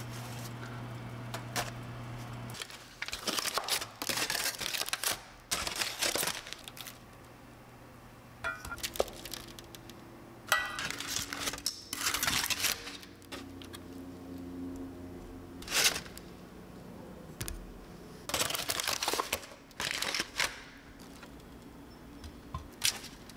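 Crinkling, rustling handling sounds in repeated short bursts, with a steady low hum for the first couple of seconds.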